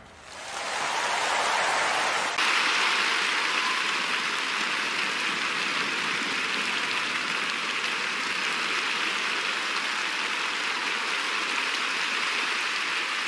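Arena audience applauding, swelling over the first second or two and then holding steady.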